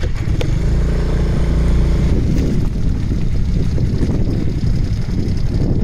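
Moving vehicle heard from on board: a steady engine hum for the first two seconds or so, over a constant low rumble of road and wind noise.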